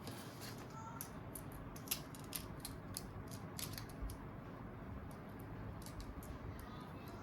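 Faint, irregular small clicks and taps of a mobile phone's plastic casing and parts being handled.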